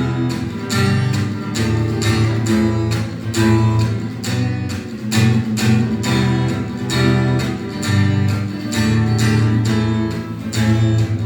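Acoustic guitar strummed in a steady rhythm, chords ringing: an instrumental passage of the song, without voice.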